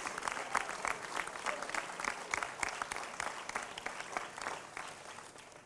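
A crowd applauding, many hands clapping, the applause thinning and dying away near the end.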